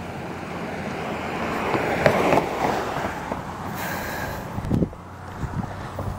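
A car passing by on the road: engine and tyre noise swells to a peak about two seconds in, then fades away. A few thumps follow near the end.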